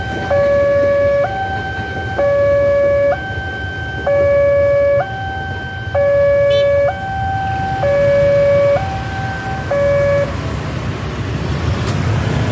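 Railway level-crossing warning alarm sounding its two-tone electronic chime, a low note and a higher note alternating, each held just under a second. It cuts off about ten seconds in, the sign that the train has cleared and the barrier is lifting. Near the end a low rumble of motorcycle engines rises as traffic moves off across the tracks.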